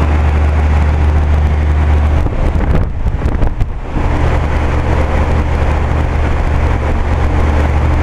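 2011 Aire-Flo heat pump outdoor unit running in heat mode: a steady low compressor hum under the air rush of the condenser fan. The hum weakens for a couple of seconds about halfway through, then returns.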